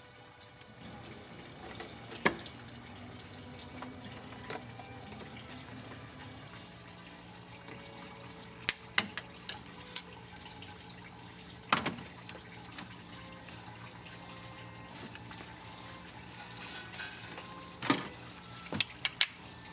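Steady trickle of liquid, coolant draining from the cooling system. Over it come sharp clicks and knocks of hoses and clamps being handled, with the loudest clusters near the middle and near the end.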